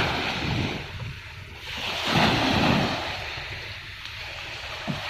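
Sea waves washing up on a beach, surging twice about two seconds apart, with wind buffeting the microphone.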